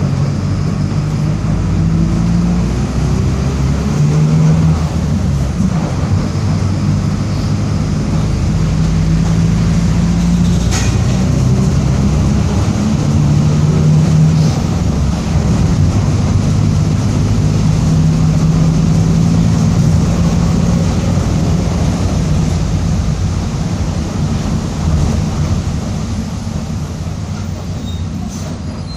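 Mercedes-Benz OF-1722M city bus under way, its engine running with the differential growling: a whining hum that comes and goes for a few seconds at a time and rises in pitch as the bus picks up speed.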